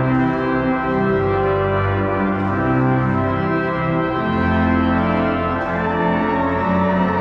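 Church organ playing slow, sustained chords, the notes changing every second or so.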